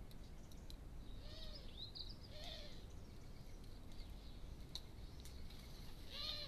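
Short bird calls over a steady low background rumble: a call about a second in, another about two and a half seconds in, and a louder one near the end, with a few faint clicks between them.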